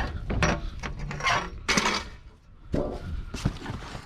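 A run of metallic clinks and knocks as scrap metal is handled, with a short lull about halfway through.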